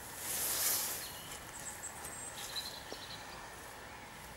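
A brief rustling hiss about half a second in, then a few faint, thin, high-pitched calls from small birds in the woodland, over a steady outdoor background.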